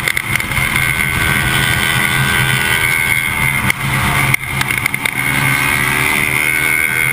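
Sport motorcycle engine running hard at track speed, its pitch rising and falling with the throttle, with a couple of brief dips about four seconds in.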